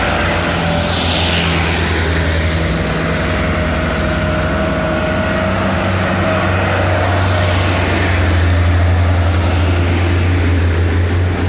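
Diesel engines of heavy trucks loaded with sugarcane running hard as they climb a hill, a steady low drone that grows loudest near the end as one truck passes close by.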